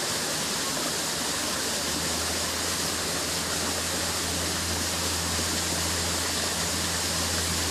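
Steady rushing of running water, even and unbroken, with a low steady hum joining in a couple of seconds in.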